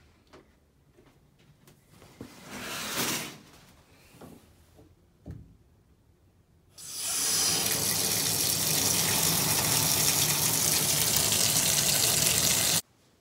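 Water running from a tap into a sink, a steady rush lasting about six seconds that stops suddenly. Before it come a few light knocks and a brief shorter rush of noise.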